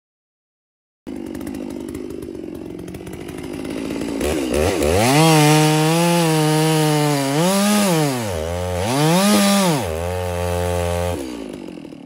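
Two-stroke chainsaw starting low, then opened up to full throttle about four seconds in. The revs hold high, drop sharply and climb back twice, then the throttle is released near the end.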